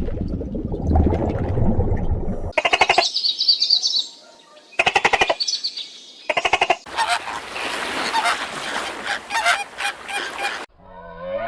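Birds calling in pulsed bouts after a couple of seconds of low noise, then a dense chorus of many overlapping calls that cuts off suddenly near the end.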